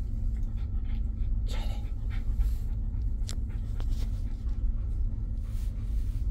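A cocker spaniel panting over a steady low hum from the ferry it is travelling on.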